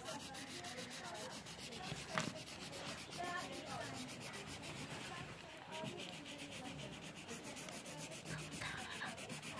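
Felt-tip marker scratching on notebook paper in quick back-and-forth strokes as an area is coloured in.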